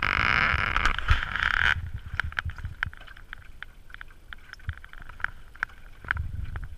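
Water rushing along a 420 sailing dinghy's hull: a loud hiss that cuts off suddenly a little under two seconds in. After that it is quieter, with scattered small water slaps against the hull and a low wind rumble on the microphone.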